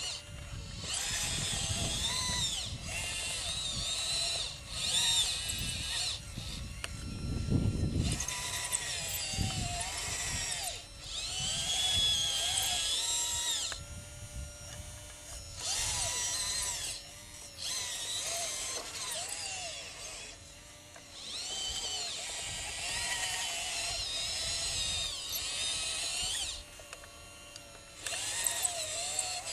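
Radio-controlled scale Liebherr LR632 crawler loader's electric motors and hydraulic pump whining in bursts of a few seconds, the pitch rising and falling as it drives and works the bucket. A short low rumble comes about eight seconds in.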